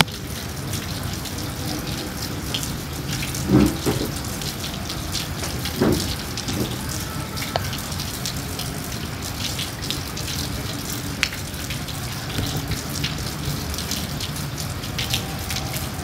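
Steady rain falling on a puddle, a constant patter of many individual drops. Two louder dull thuds come about three and a half and six seconds in.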